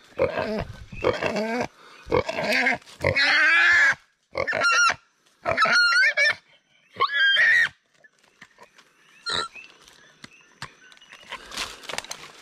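Wounded feral pig squealing and grunting while it is pinned by hand. A run of loud calls, the later ones high, wavering squeals, stops about eight seconds in, leaving a click and rustling in the leaf litter.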